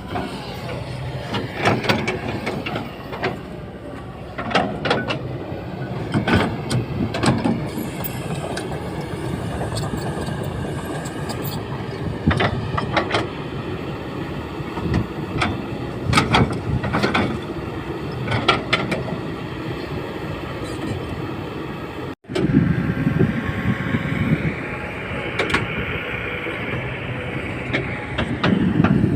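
Kobelco SK200 hydraulic excavator working: the diesel engine and hydraulics run steadily under load, with frequent clanks and knocks from the bucket and linkage as it levels backfill. The sound drops out for an instant about three-quarters of the way through, then a whine rises and falls.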